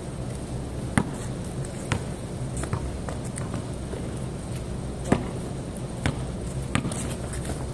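Basketball bouncing on a concrete court: several sharp, irregularly spaced bounces over a steady low background hum.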